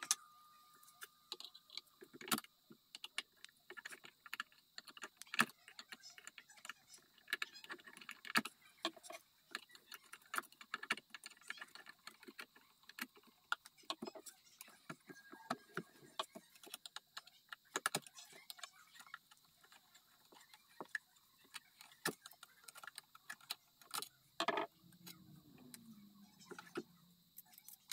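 Irregular small clicks, taps and metallic rattles of a brass clock movement being handled and worked loose inside a wooden mantel clock case. Near the end comes a louder metallic knock with a short ring.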